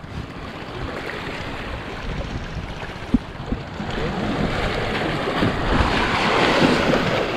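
Sea waves washing and breaking against shoreline rocks, growing louder in the second half. A single sharp click comes about three seconds in.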